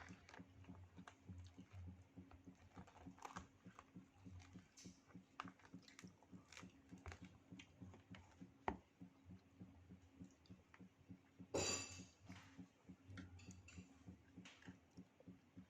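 Faint, irregular clicks and taps of food and utensils being handled, over a steady low hum, with one louder rustling burst about twelve seconds in.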